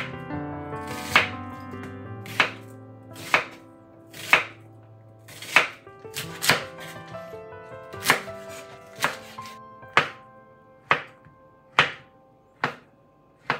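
Chef's knife slicing onion and shiitake mushrooms on a wooden cutting board, one sharp knock of the blade on the board roughly once a second. Soft background music plays underneath.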